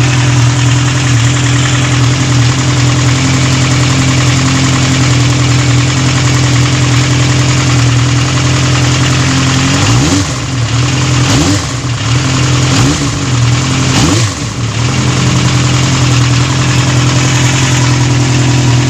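Yamaha Zeal 250's four-cylinder engine idling steadily and evenly with its carburettors freshly synchronised, blipped up and back down about four times around the middle.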